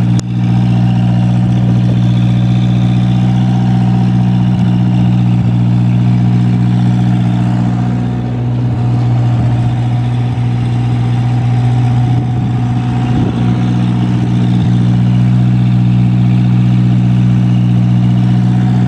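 Bobcat 610 skid steer engine running steadily at one speed, just after a cold start in freezing weather.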